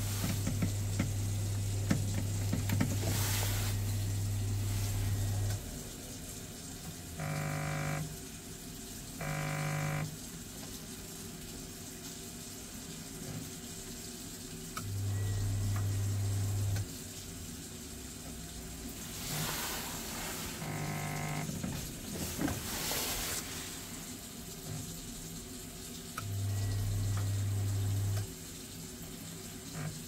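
Vaillant combination boiler cycling in its fault loop: a low hum that switches on and off for a couple of seconds at a time, with three short buzzes in between. The engineer puts the endless loop down to a failed circuit board.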